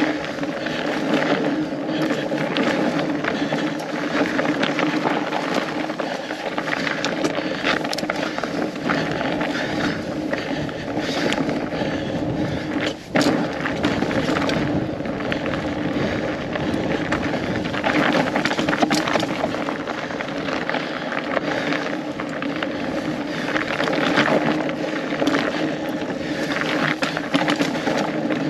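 Riding noise from a fat bike on studded tyres over a frozen trail: tyres rolling on hard snow and dirt, with the bike rattling and clicking over bumps and wind buffeting the microphone. The noise dips briefly about halfway through.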